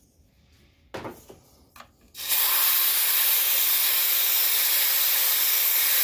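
Compressed-air blow gun on a shop airline, regulated down to 10–15 PSI, hissing steadily from about two seconds in as it blows dust out of a projector's cooling fan. A knock and a couple of small clicks come just before the blast.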